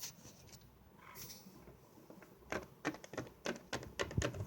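Plastic toy figures being handled and set down: a run of light clicks and taps in the second half, the last one loudest.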